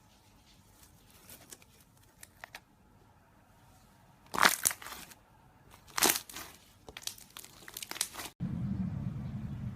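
Slime being pressed and squeezed: faint crackles at first, then two loud crackling squishes about four and six seconds in, and a run of smaller crackles after. Near the end the sound cuts abruptly to a steady low hum.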